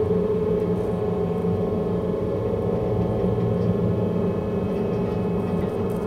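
A steady drone of several sustained tones sounding together, one pitch standing out, unchanging throughout: the tone signals played at the uraninite samples.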